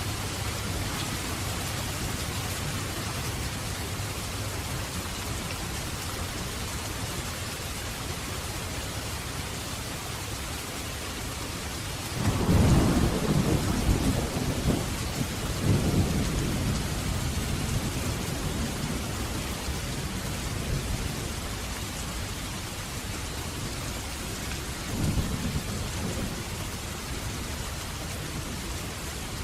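Steady heavy rain with a rolling thunderclap about halfway through that rumbles on for several seconds, then a smaller rumble near the end.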